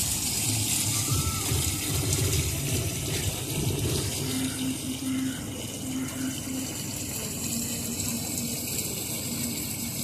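Steady rush of running water, an even hiss with no breaks.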